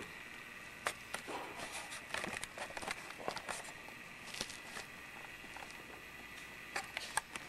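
Camcorder handling noise: irregular light clicks and rustles as the camera is swung about, over a steady faint high-pitched hum.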